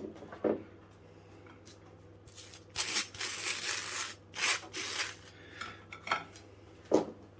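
Knife spreading butter across toast: a handful of dry scraping strokes, the longest lasting about a second, with small knocks between them.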